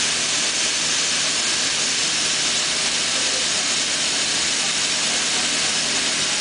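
A steady, even rushing hiss that holds at one level, with no distinct events.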